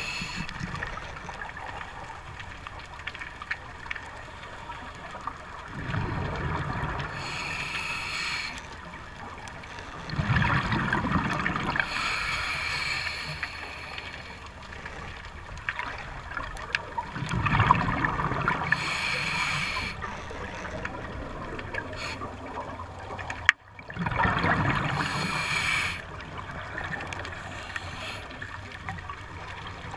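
Scuba diver breathing through a regulator underwater: a hiss on each inhale and a gurgling rush of exhaled bubbles, repeating about every five to six seconds.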